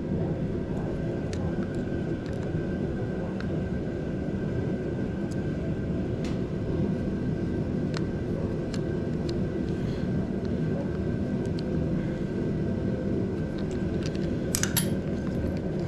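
A steady low mechanical drone with scattered light clicks and a short clatter near the end.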